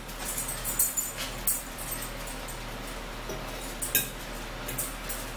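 Mealtime sounds: a fork clinking on a plate and light clicks of food being handled. A sharper click comes about four seconds in.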